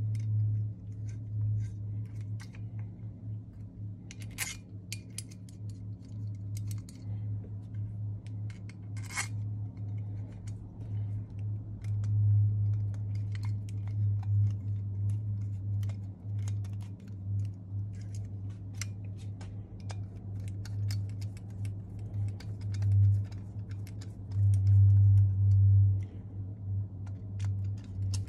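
Light metallic clicks and scrapes of aluminium Autolite 2100 carburetor parts being handled and fitted together with a small screwdriver, over a steady low hum.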